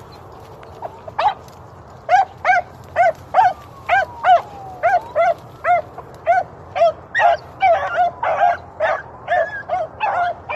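Rabbit dogs giving mouth while running a rabbit's track: short, evenly paced barks, about two or three a second. A few scattered barks come first, the steady run starts about two seconds in, and near the end a second dog's barks overlap with the first.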